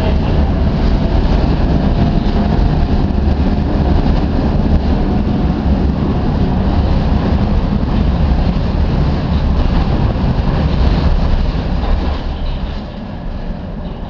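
Tatra T6B5 tram running along the track, heard from on board: a steady, loud rumble of wheels on rail and running gear that eases off about twelve seconds in.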